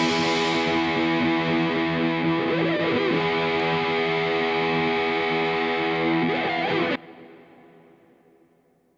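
Background music: a held distorted guitar chord that cuts off about seven seconds in and dies away.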